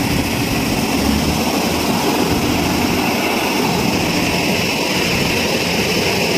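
4WD combine harvester running steadily while its unloading auger pours threshed paddy into a trolley: a constant, unbroken machine drone.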